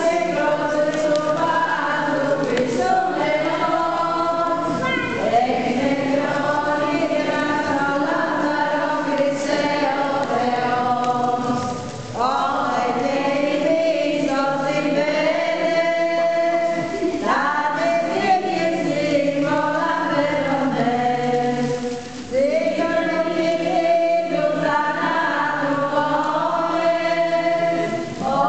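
A congregation singing a Byzantine-rite hymn unaccompanied, in long sustained phrases with brief breaks for breath between them.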